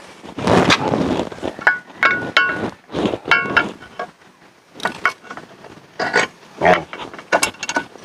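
Irregular metallic clinks and knocks, a few with a short ring, as spacers and the swing arm are fitted back onto a Honda ADV 150's rear axle by hand.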